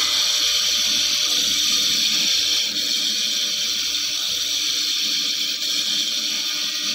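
300 W pulsed fiber laser ablating rust off a steel tube: a steady, high-pitched hiss.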